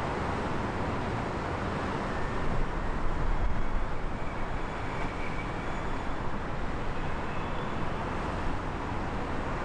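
Twin-engine business jet on the runway, its turbofans heard as a faint whine that rises slowly in pitch over a steady rush of noise. The noise grows louder and deeper for a couple of seconds a few seconds in.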